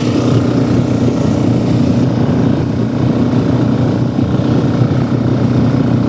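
Walk-behind tractor (motoblock) engine running steadily while under way.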